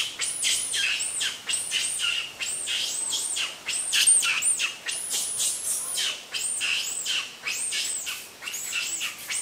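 Birds chirping: a dense, unbroken run of high calls, each sweeping up and back down, about three a second and overlapping one another.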